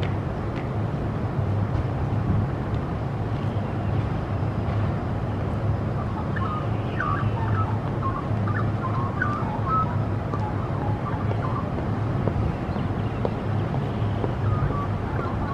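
Steady rumble of heavy road traffic, with a few short bird chirps over it around the middle.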